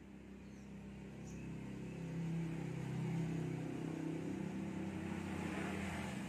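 A motor vehicle's engine running steadily, growing louder about two seconds in and then holding.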